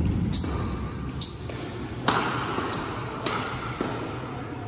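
Badminton rackets striking a shuttlecock in a fast rally: about six sharp hits, less than a second apart, each with a brief high ring.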